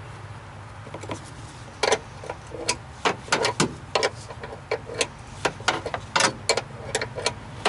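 Irregular metallic clicks and clinks of a hand wrench working a battery hold-down fastener loose, over a low steady hum.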